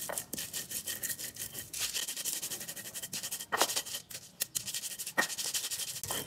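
Stone pestle grinding chili paste on a flat stone mortar (cobek): a fast, even back-and-forth scraping rhythm, with two sharper knocks, one just past the middle and one near the end.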